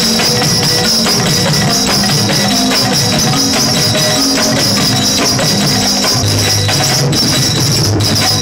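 Instrumental music with a melody that moves in steps and a busy, steady percussion beat with tambourine-like jingles.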